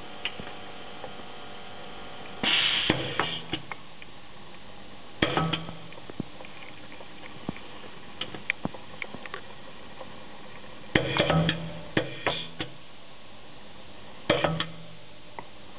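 Brabender HSG-C heat sealer's sealing jaws cycling: five loud mechanical clacks, some followed by a short hiss of air, with smaller clicks in between.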